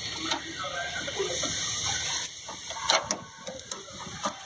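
Screwdriver tightening a small screw into a metal wiper bracket, with a few sharp metal clicks, the loudest about three seconds in, among scattered short squeaks.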